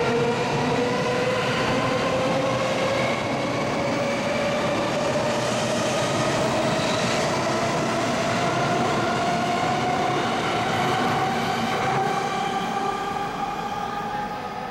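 N700 series Shinkansen pulling away and accelerating, its traction motors giving a whine that rises steadily in pitch over the rolling noise of the wheels. The sound fades near the end as the train draws off.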